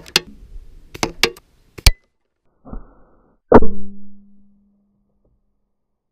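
A few sharp clicks, then a loud hard knock on the camera with a low ringing hum that fades over about a second and a half, after which the sound drops out. The knock fits a BB striking the camera's plastic protective case, which cracked.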